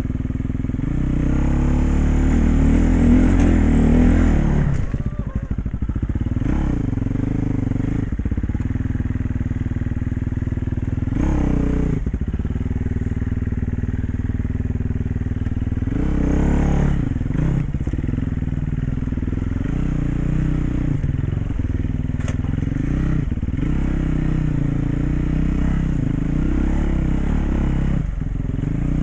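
KTM dirt bike engine running at low speed on a rocky trail, with the throttle opened harder for about three seconds early on that then drops away sharply, and short revs about 11 and 16 seconds in.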